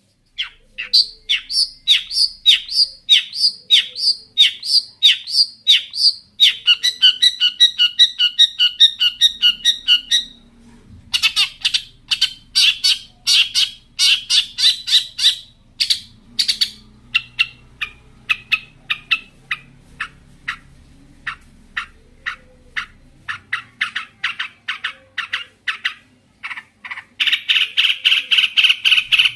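Long-tailed shrike in full, energetic song packed with mimicked calls: first a run of falling whistled notes about two a second, then fast rattling trills and chatter in bouts, with a sparser stretch of single notes before a last dense burst near the end.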